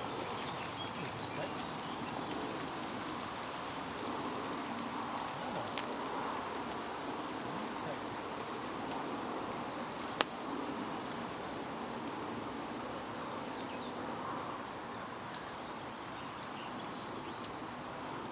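Steady outdoor ambience at the water's edge: an even rushing hiss, with a single sharp click about ten seconds in.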